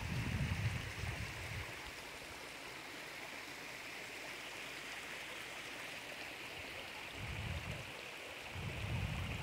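Shallow river running among rocks: a steady rush of flowing water. Low rumbles on the microphone come at the start and twice near the end.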